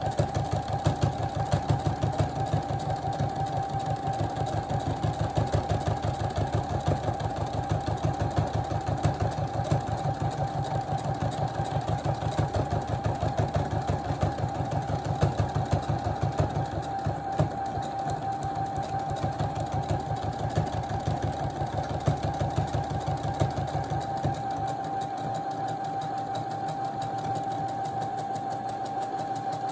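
Electric sewing machine running continuously, its needle stitching a decorative stitch through denim with rapid, even strokes over a steady motor whine. It runs a little softer in the last few seconds.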